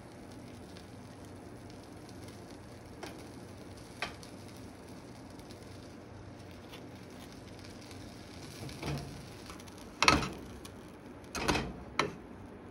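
Utensils knocking against cookware: a few soft clicks over a faint steady hum, then three sharp knocks near the end.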